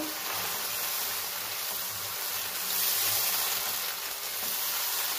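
Minced meat, onions and freshly added tomato puree sizzling in hot oil in a kadai, a steady hiss, while a silicone spatula stirs it through; the sizzle swells a little around three seconds in.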